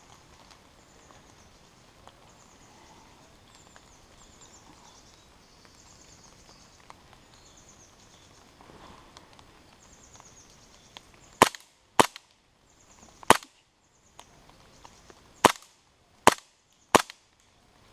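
Airsoft gun fired in single shots: six sharp cracks, unevenly spaced, starting about two-thirds of the way through. Before them, only faint bird chirping.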